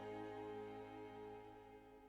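Slow background music of held chords, fading out toward the end.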